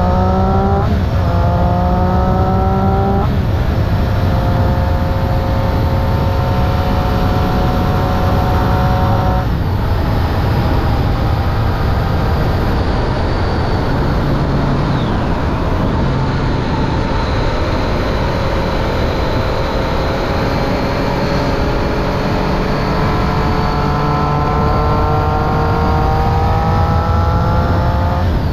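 Triumph Street Triple 675 inline-three engine through a Remus Hypercone exhaust with its dB killer fitted. It accelerates and shifts up twice in the first few seconds, holds a steady pitch, drops off about ten seconds in, then slowly builds revs again towards the end. Heavy wind noise runs underneath.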